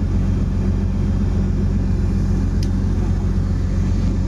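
Fishing vessel's engine running with a steady low drone.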